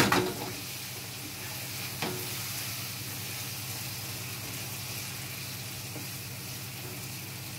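Minced meat, onion and tomato sauce sizzling steadily in a nonstick frying pan on a gas flame while a wooden spoon stirs it. The spoon knocks once against the pan about two seconds in.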